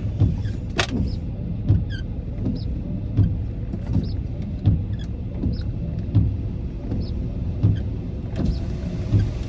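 Car running with the cabin closed: a steady low rumble, with a soft regular tick-and-thump about every three quarters of a second and one sharp click about a second in.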